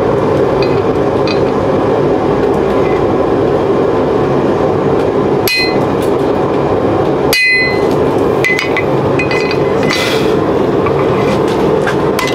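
Hammer striking the top die of a guillotine-style spring swage to fuller a hot leaf-spring knife blank: a few light metallic taps, then louder ringing strikes from about five seconds in, over a steady loud rushing noise.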